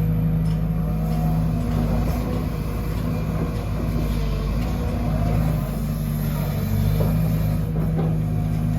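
Sumitomo SH210 hydraulic excavator's diesel engine running steadily, its note wavering briefly twice as the machine works, with a few faint knocks near the end.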